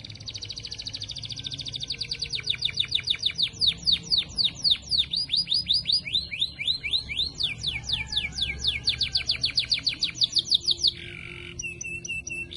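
Female canary singing in long, rapid trills of fast repeated notes, switching from one trill to another every few seconds, louder from about two seconds in and briefly breaking off near the end.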